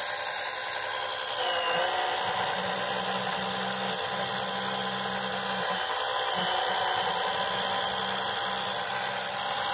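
Small electric oil-extraction pump running steadily with a whining motor hum. Its pitch dips briefly about a second and a half in.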